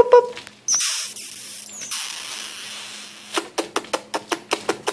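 A sudden burst of hiss about a second in, fading over the next two seconds; then, a little past three seconds, five-week-old Boxer puppies start yipping in quick short barks, about four a second.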